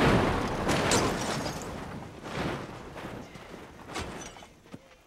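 A car crashing and overturning: a rush of noise with a run of heavy thuds and smashing that grow fainter and die away.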